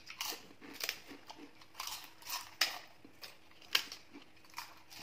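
Eating at close range: an irregular run of short, crisp cracks and crunches as papad (thin fried lentil crackers) is snapped and bitten, mixed with chewing. The sharpest crack comes near the end.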